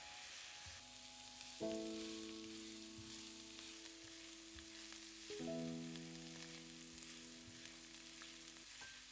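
Food sizzling as it fries in hot oil in a pan, a steady hiss, under background music that strikes two long, sustained chords, one a little over a second in and one about five seconds in.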